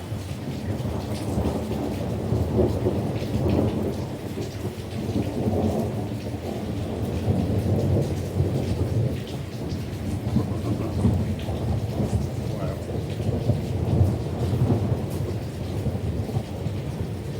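Thunder rumbling continuously, swelling and fading in long rolling waves, over steady rain.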